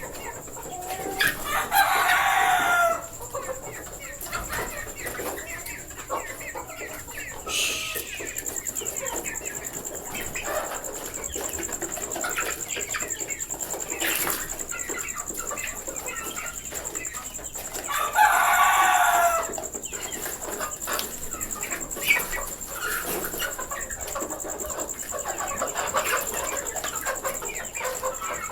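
Flock of desi chickens clucking and scratching, with a rooster crowing twice, about a second in and again about two-thirds of the way through. A steady high-pitched whine sits underneath.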